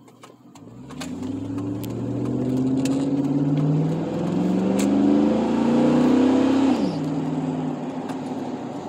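Chevrolet Silverado 4.8-litre V8 exhaust through a Carven R muffler, heard from inside the cab while the truck accelerates. The engine note climbs, dips at a gearshift about four seconds in, climbs again, then drops suddenly about seven seconds in and settles to a steady cruise.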